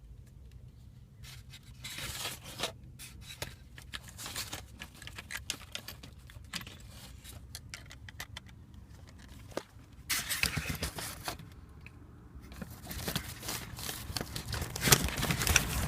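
Hands working a dash speaker out of its opening in a Chevy S10 dash: scraping, crinkling and clicks in irregular spurts, busiest near the end.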